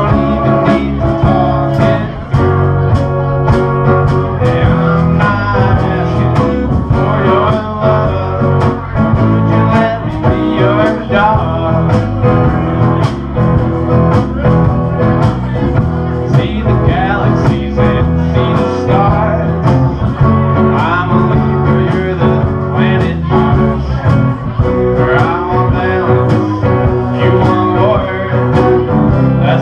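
A man singing a song while accompanying himself on guitar, with steady strumming.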